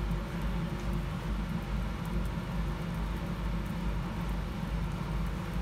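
Thin vegetable strips frying in oil in a pan: a steady sizzling hiss with faint crackles over a constant low hum.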